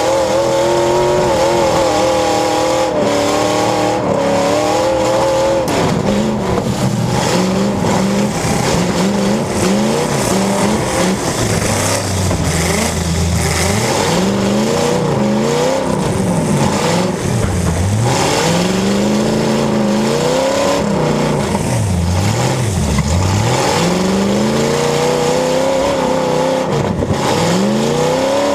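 Demolition derby cars' engines revving hard and continuously, the pitch rising and falling again and again as the cars accelerate, back up and ram each other.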